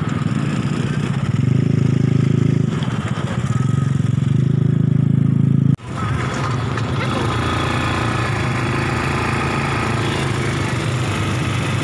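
Small quad-bike (ATV) engine running steadily as it drives through shallow sea water. After a sudden cut about halfway, a steady engine drone continues with an even rushing noise over it.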